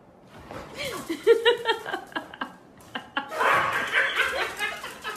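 People laughing, starting about half a second in with short choppy bursts and growing into a louder, breathy fit of laughter after about three seconds.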